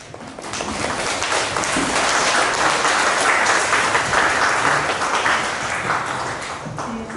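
Audience applauding at the end of a talk, swelling over the first few seconds and tapering off near the end.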